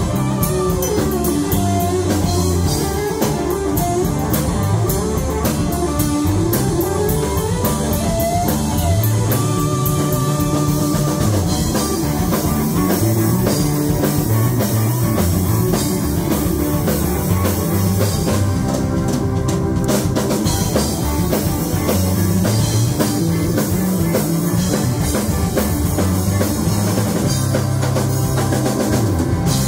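Live rock band playing loud: electric guitars over a drum kit and bass.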